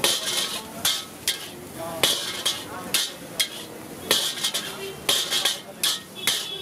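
Metal ladle scraping and clanking against a large wok as fried rice is stir-fried, in irregular strokes about twice a second, with a faint sizzle underneath.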